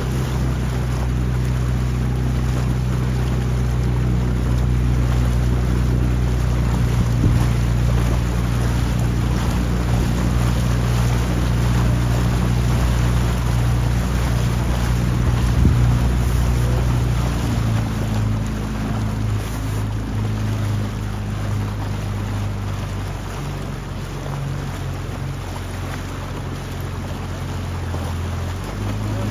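A motorboat engine running steadily, with wind buffeting the microphone. The engine eases off about two-thirds of the way through and picks up again near the end.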